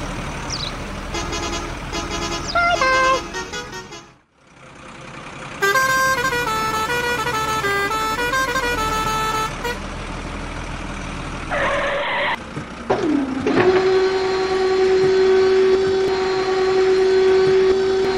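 Electronic toy-truck sound effects: short runs of beeping notes, then a longer stepping melody from about six to ten seconds in, then one long steady horn-like tone over the last few seconds.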